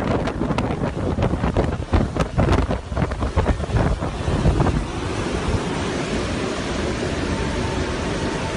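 Hurricane wind gusting across a phone microphone, buffeting it in irregular bursts for the first half. About halfway through it settles into a steady rushing noise of wind and floodwater.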